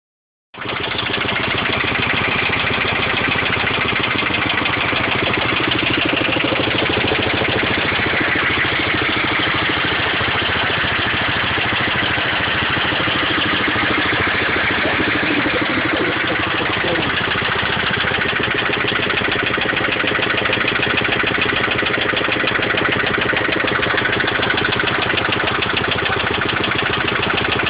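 BMW E30's M10 four-cylinder engine with a Pierburg 2BE carburettor idling steadily, with a knock running through the idle that the owner is trying to trace.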